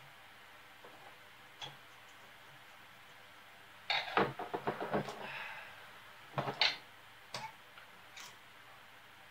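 Small plastic and metal parts clicking and rattling on a wooden workbench as an RC truck's motor and gearbox assembly and a hex driver are handled. A quick run of clicks and rattles comes about four seconds in, a shorter cluster about six and a half seconds in, and a few light clicks in between and after.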